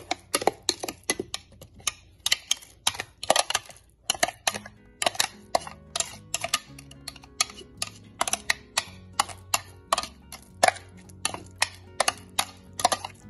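A spoon stirring inside a plastic food-processor bowl, knocking and scraping against its sides in quick, uneven clicks, about three a second.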